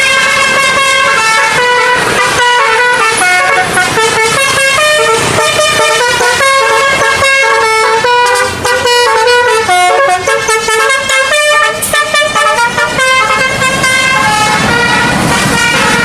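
Telolet Basuri bus horn, a multi-trumpet air horn, playing a fast tune of stepped notes with several notes sounding together. The notes turn choppier, with short breaks between them, through the middle of the stretch.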